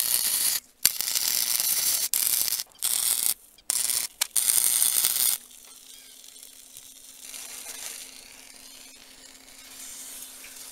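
Electric arc welding of a freewheel sprocket onto a bicycle hub: the arc crackles and hisses in runs of a second or so, broken by brief pauses. It stops about five seconds in, leaving only a faint steady hum.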